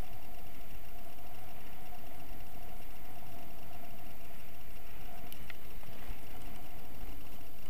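Steady wind rushing over the camera microphone, mixed with the low rumble of a kite buggy rolling over sand, with a constant hum under it.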